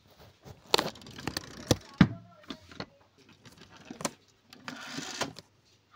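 Handling noise from a diecast metal toy car: several sharp clicks and knocks of its metal and plastic parts, with two short stretches of rustling and scraping against cardboard.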